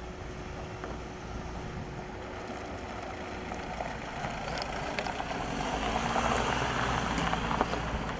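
Ambulance van driving on a gravel dirt road, its engine and tyres on the gravel growing louder as it approaches and passes close by.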